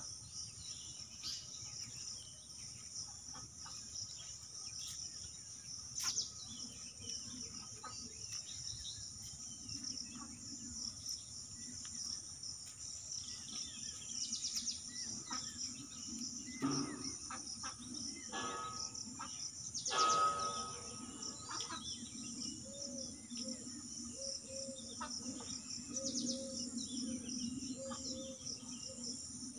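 Steady high-pitched chirring of insects, with scattered short bird calls. About two-thirds of the way through, a louder animal call with several stacked tones stands out.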